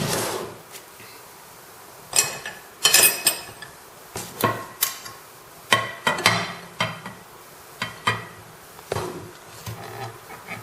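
A dozen or so irregular knocks and clinks of a baking dish against a plate or counter as a microwave chocolate cake is turned out of its buttered dish.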